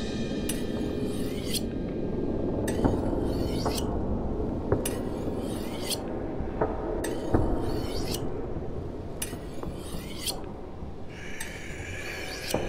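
Trading cards and cardboard comic sleeves being handled: repeated short sliding and rubbing scrapes about once a second, with a few light clicks as the pieces are picked up and set down.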